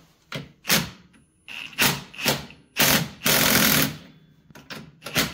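Impact wrench hammering in short bursts, about six of them, with one longer run of most of a second about three seconds in, as it runs a nut onto the front suspension of a Polaris Ranger 400.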